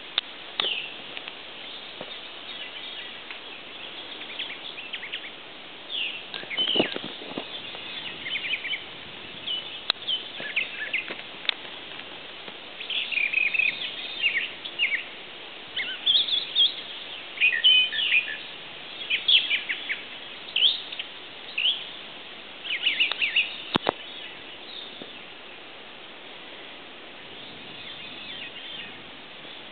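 Several songbirds singing and calling: short chirps and quick phrases in clusters, busiest in the middle and thinning out near the end, over a steady background hiss.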